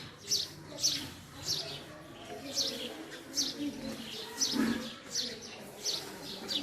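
Male house sparrow chirping: a steady run of short, sharp cheeps, about two a second.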